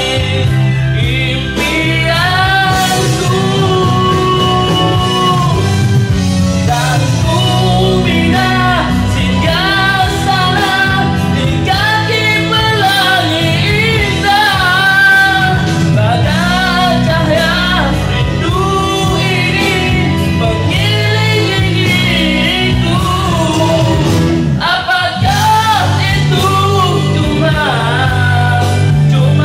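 A man singing a Malay-language ballad into a handheld microphone over a rock-style backing track.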